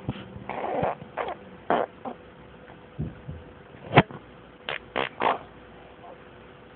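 A series of short fart-like raspberries blown with the lips, about eight brief bursts, with a sharp click about four seconds in.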